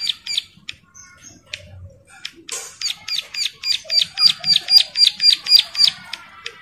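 Bar-winged prinia (ciblek) in breeding condition singing: a few sharp chips, then about two and a half seconds in a fast, loud run of repeated down-slurred notes, about six a second, lasting some three seconds.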